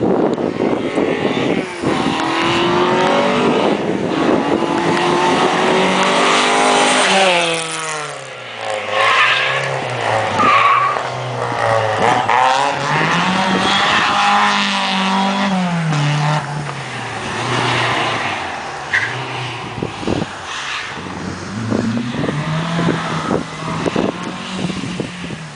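Rally car engines at full throttle, revving up and falling back again and again in pitch as the cars brake for the corner, change gear and accelerate away.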